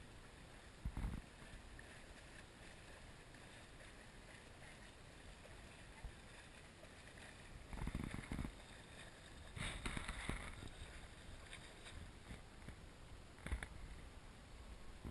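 Faint splashing of a swimmer's kicking feet as he pushes a kayak along the river, with a few brief louder bursts of noise.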